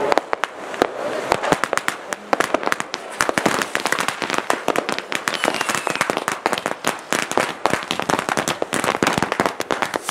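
Fireworks crackling: a dense, irregular string of sharp cracks and pops from gold crackling effects, going on without a break.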